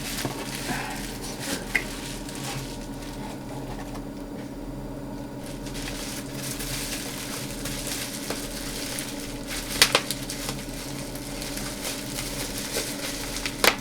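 Rustling and crinkling of a parcel's packaging and wrapping being handled and pulled at, with a couple of sharp clicks about ten seconds in.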